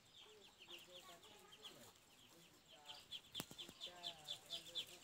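Ducklings peeping: a rapid run of many short, high cheeps that grows louder in the second half, with lower calls underneath. A single sharp click comes about three and a half seconds in.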